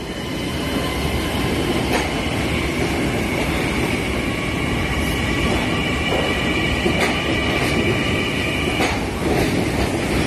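LIRR M9 electric multiple-unit train pulling out of the station past the platform: a steady rumble of wheels and running gear with a high squeal that holds for most of the pass and fades near the end, and a few clacks over rail joints.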